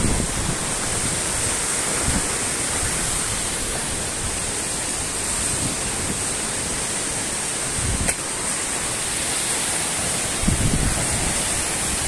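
Steady rushing of a tall waterfall close by, with wind buffeting the microphone in low rumbling gusts near the end.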